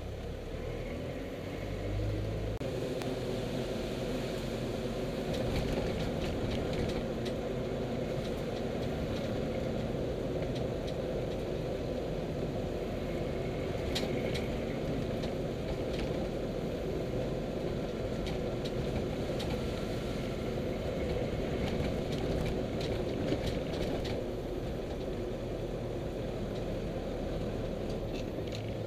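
Engine of a small vehicle running steadily while it drives along a road, with road noise and a few light clicks and rattles in the middle.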